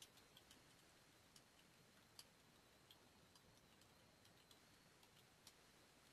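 Near silence with faint, irregular computer keyboard clicks as text is typed.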